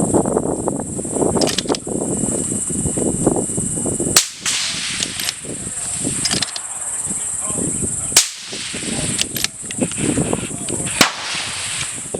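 Suppressed center-fire rifle fired three times, a sharp crack about every three to four seconds, over a steady high insect drone.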